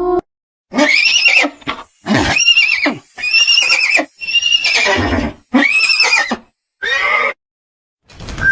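Six loud horse-like whinnying calls, each under a second long and quavering, with short gaps between them; the last one is shorter.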